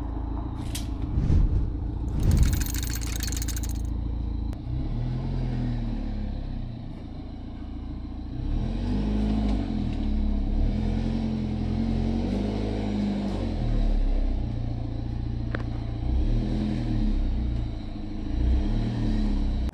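BMW F30 320i ED's N13 1.6-litre turbocharged four-cylinder engine running at the exhaust, revved up and down several times. There are two louder knocks about one and two and a half seconds in.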